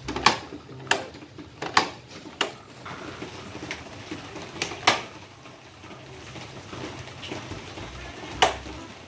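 Plastic ride-on toy excavator's bucket arm clacking as it is worked by hand: a series of sharp, irregular plastic knocks, most in the first five seconds and one more near the end.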